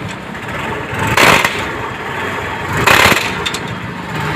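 TVS Apache RTR motorcycle running with its drive chain giving two loud, short cracking 'kat kat' bursts, about a second and three seconds in, over a low steady engine hum. The noise comes from the front chain sprocket, whose teeth are worn away, and a very loose chain.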